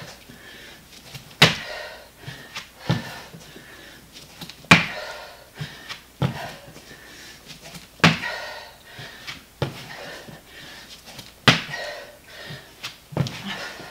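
Hands and feet thudding on the floor in a steady rhythm about every one and a half seconds as a person drops down to the floor and jumps back up into a squat, every second impact louder.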